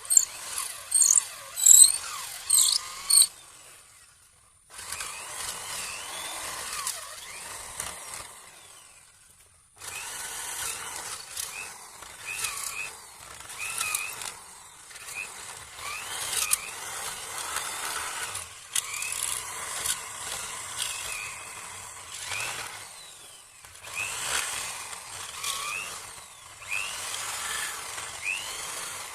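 Electric hand drill boring into wood to rough out a mortise. It runs in stretches, with two short breaks about four and ten seconds in, and many short squeaks.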